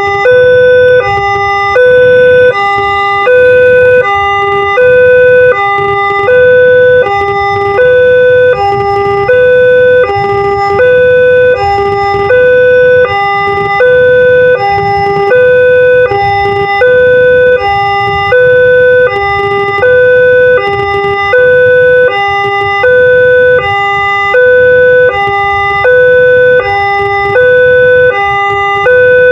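Electronic Multec-type railway level-crossing siren sounding its fast two-tone warning. A higher and a lower note alternate evenly, about one high-low cycle a second, with the higher note louder. It is the signal that a train is approaching the crossing.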